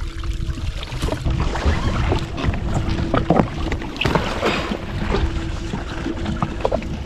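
Sea water sloshing and splashing around a jet ski, with irregular knocks and wind on the microphone. A faint steady hum runs underneath.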